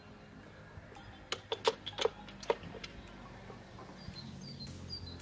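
Several sharp, irregular clicks and clinks of hand tools working on the scooter, bunched together from about a second in, over a faint steady low hum.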